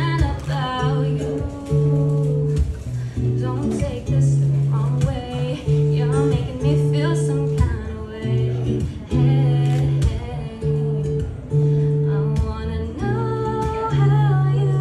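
A woman singing while strumming chords on an acoustic guitar.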